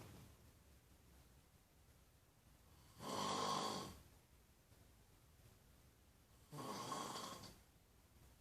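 Snoring: two snores about three and a half seconds apart, each lasting about a second, with quiet breathing between them.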